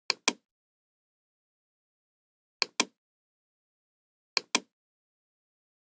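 Computer mouse clicks: three pairs of sharp clicks, each pair a quick press and release, a couple of seconds apart.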